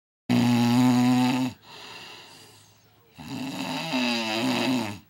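A man snoring loudly in his sleep, untreated before CPAP therapy: two long snores with a quieter breath out between them.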